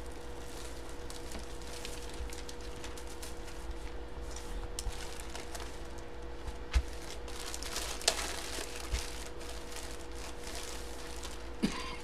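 Clear plastic sleeve crinkling as it is handled, with a few light knocks.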